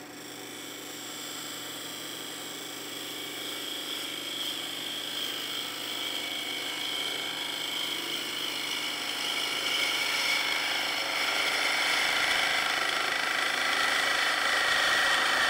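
Wood lathe spinning a wooden sphere while a turning tool cuts and scrapes its surface: a steady hissing cut with a faint whine, growing gradually louder toward the end.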